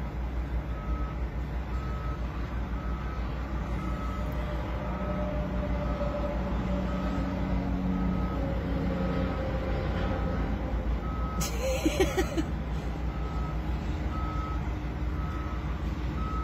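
A vehicle's reversing alarm beeping about once a second over a steady low engine rumble, with a brief loud hiss about twelve seconds in.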